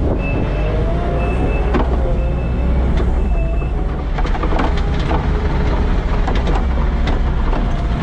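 Diesel engine of a Kubota loader with a Cotech snow plow running steadily under load. Its reverse backup alarm beeps about once a second through the first half as the machine backs away from the snow. In the second half, scattered clanks and knocks come from the plow and machine.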